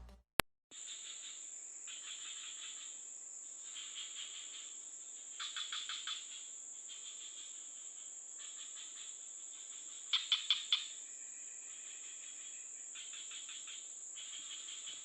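Night insect chorus: crickets keep up a steady, high-pitched trill, while other insects chirp in short spells every second or so, with two louder runs of rapid chirps partway through.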